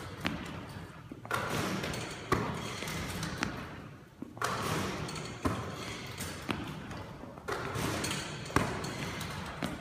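Basketball shooting practice with a rebounding machine: about eight sharp knocks roughly a second apart as the ball hits the rim and backboard, drops through the net and chute and is passed back and caught. A rushing noise swells and fades between the knocks.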